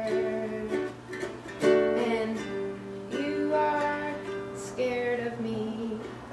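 Music on a plucked string instrument: strummed chords ringing out and changing every second or so.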